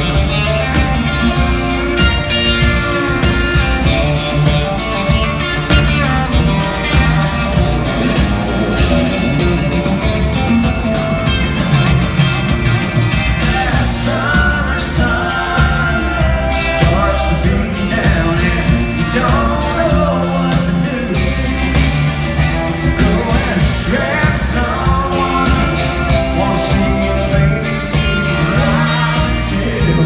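Live country-rock band in an arena, recorded from the crowd: electric guitar, drums and a strong low bass, with a man singing.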